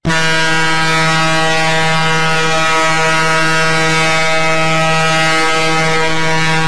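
Recorded horn sound effect: one loud, steady low horn blast with many overtones, starting abruptly and held without any change in pitch.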